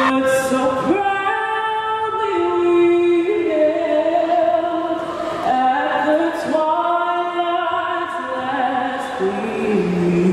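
Music: voices singing long held notes that step from one pitch to the next.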